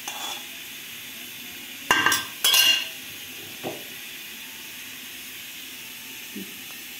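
A spoon clattering against a ceramic bowl in two short bursts about two seconds in, then a light knock a second later, over a faint steady hiss.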